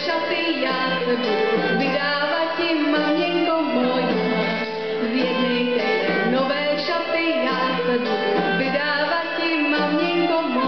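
Live folk band playing an instrumental passage, a melody over acoustic guitar accompaniment.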